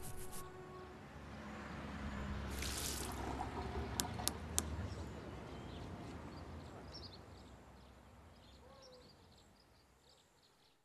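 Toothbrush scrubbing with fast, even strokes for the first half second. Then a short hiss a little over two seconds in and three sharp clicks about four seconds in, over a low rumble that slowly fades out.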